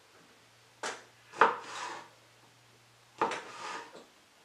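Chef's knife slicing a bell pepper on a wooden cutting board: two slicing strokes about two seconds apart, each a sharp knock of the blade on the board followed by a short crisp scrape, with a lighter knock just before the first.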